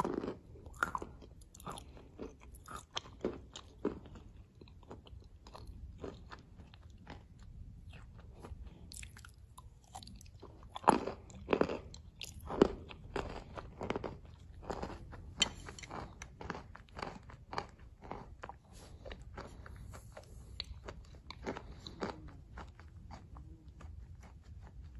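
Close-miked mouth sounds of eating a thick clay porridge with chalk: irregular crunching, biting and chewing with wet clicks. The loudest crunches come about eleven to thirteen seconds in.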